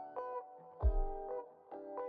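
Background music: plucked chords over a deep, thumping beat.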